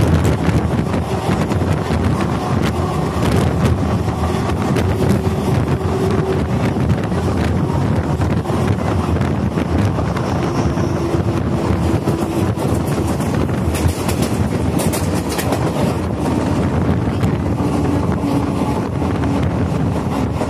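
Indian Railways passenger train running at speed, heard from the side of the moving coach: a steady rumble and rattle of wheels on the track with scattered clicks, and wind buffeting the microphone.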